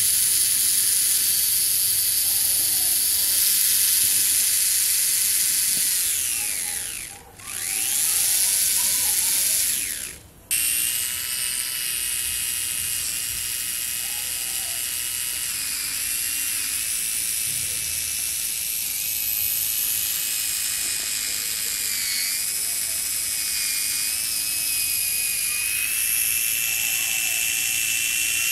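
Modified SG90 micro servo's small DC motor and plastic reduction gears running as a drive motor, giving a high gear whine. The whine slows to a stop about seven seconds in and speeds up again. It cuts out briefly about ten seconds in, then runs steadily.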